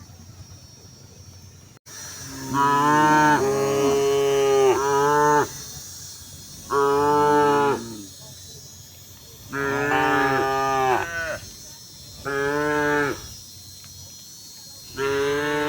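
Cow mooing five times with quiet gaps between the calls. The first moo is the longest, about three seconds, and the others are shorter, each about a second or a little more.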